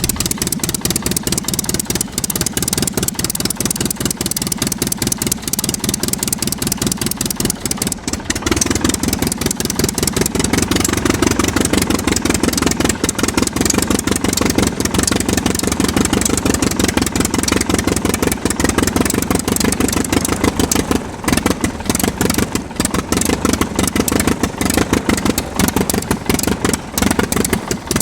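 Aircraft piston engine running with a rapid, even beat, getting a little louder about eight seconds in.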